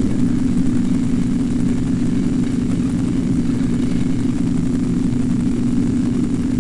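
Steady, unbroken low mechanical hum of a running machine.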